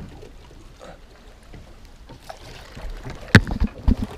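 A few knocks and bumps against a bass boat's gunwale, one sharp knock a little over three seconds in and several softer thumps after it, over low wind and water noise.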